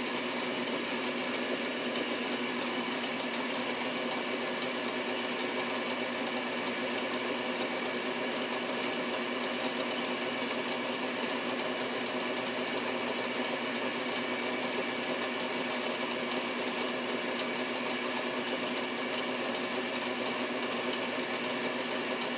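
Metal lathe running steadily with a quarter-inch drill bit spinning in the chuck, not yet touching the aluminium pulley: an even motor and drive hum with a steady whine.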